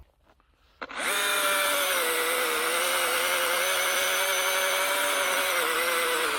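Battery-powered electric saw: a click about a second in, then the motor spins up at once and runs with a steady high whine, its pitch sagging slightly near the end.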